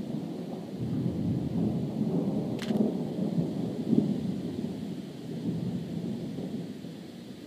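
Rolling thunder from a nearby thunderstorm: a deep rumble builds about a second in, swells twice near the middle and fades away toward the end. A brief sharp click comes about two and a half seconds in.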